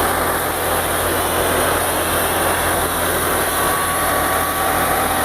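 Tractor engine driving a wheat thresher, running steadily with a loud, even mechanical noise.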